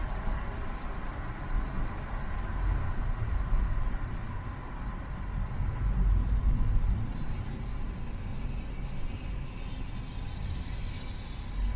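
Car driving in city traffic: a steady low rumble of engine and road noise, with a brighter hiss joining about seven seconds in.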